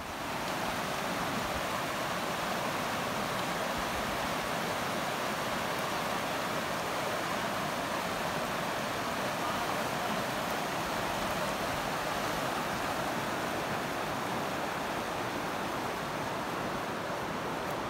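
Mountain river rushing over rocks in white-water rapids: a loud, steady rush of water that begins suddenly at the start.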